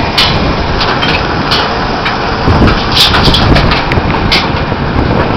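Potato-handling machinery running: a loud, steady mechanical din with frequent irregular clatters, as the conveyor loads potatoes into a truck.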